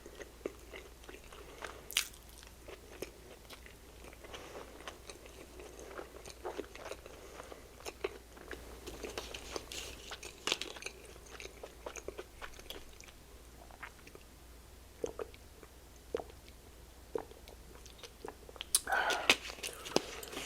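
Close-up chewing of a soft slider burger: many small, irregular wet mouth clicks and smacks, with a louder flurry near the end.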